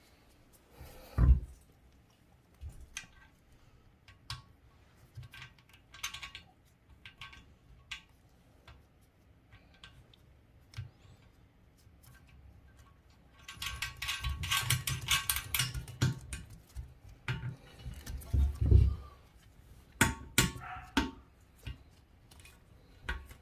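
Scattered clicks, clinks and knocks of hand-tightening the nuts on a toilet's tank-to-bowl bolts and handling the porcelain. A dense burst of metallic rattling comes about two-thirds of the way in, and heavier knocks come near the start and again a few seconds later.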